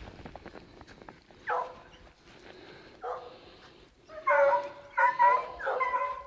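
Hunting hounds baying as they take a mountain lion's track: a single bawl about a second and a half in, another at three seconds, then several overlapping bays from about four seconds on.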